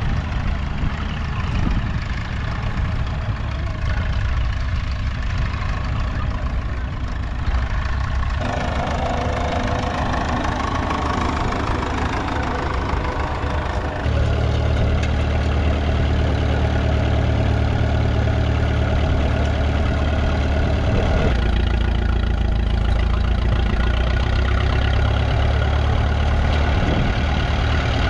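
Vintage tractor engine running steadily, with a plough hitched behind it; the sound shifts abruptly a few times.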